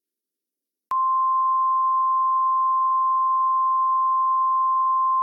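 Emergency alert attention tone: a single steady pure tone that starts about a second in and holds unchanged, the long signal that precedes an alert message.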